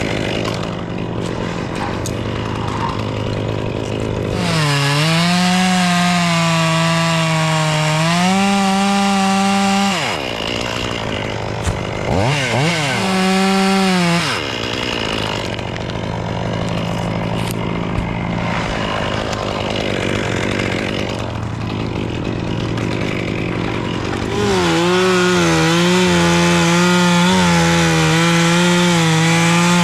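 Chainsaw alternating between idle and full throttle. It is opened up for about five seconds of cutting, revved briefly twice, drops back to idle, and is run at full throttle again near the end.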